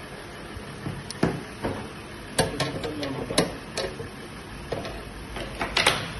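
A series of irregular sharp clicks and knocks of hard objects, about a dozen over several seconds, with faint voices in between.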